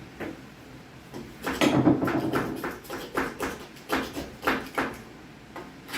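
Stainless steel caulk removal tool scraping and pulling out old caulk. It makes a series of rough scratching strokes, about two a second, starting about a second and a half in.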